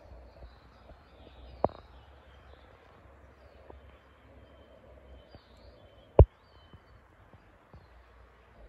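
Quiet spring woodland ambience with faint songbird chirps, broken by two sharp thumps: one about a second and a half in, and a much louder one a little after six seconds in.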